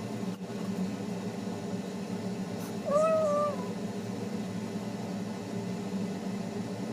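A cat meowing once, a short call about three seconds in, over a low steady background hum.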